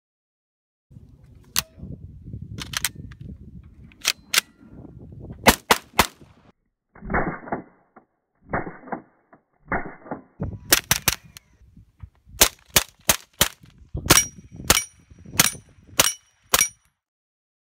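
Suppressed 9mm CZ Scorpion carbine firing single shots, pairs and quick strings. Several shots near the end are followed by a short high ring of steel targets being struck.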